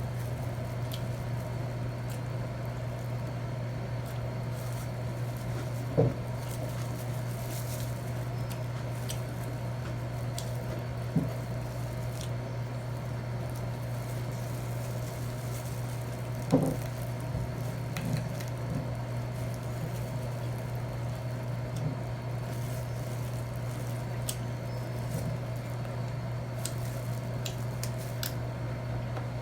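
Person eating: soft wet chewing with a few sharp clicks of utensils on a plate, over a steady low hum.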